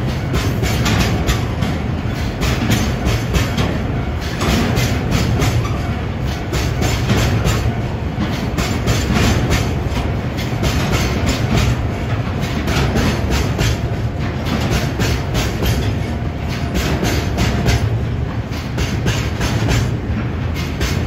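Freight train of tank wagons rolling past with a steady low rumble, its wheels clacking again and again over the rail joints.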